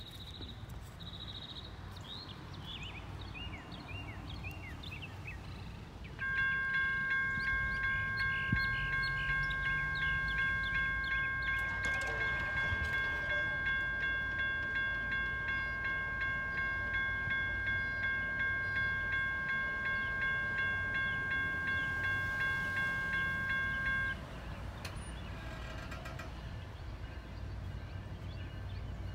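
Railroad grade-crossing warning bell ringing in rapid, even strokes. It starts suddenly about six seconds in, rings for about 18 seconds and cuts off suddenly, as a crossing signal does when it is activated for an approaching train. A few bird chirps come just before it.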